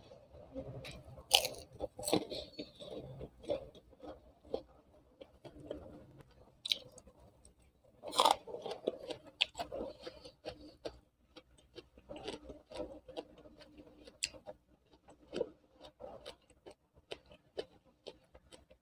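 Close-miked eating sounds: a person chewing with their mouth, giving irregular wet smacks and clicks, a few louder than the rest.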